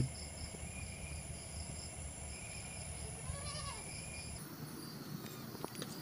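Night insects chirping steadily in pulsing trills, with one short, faint wavering animal call about three seconds in.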